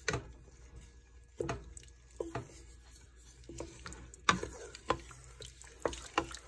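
A wooden spoon stirring a thick tomato, rice and vegetable mixture in a stainless steel pot, with irregular soft knocks and scrapes of the spoon against the pot.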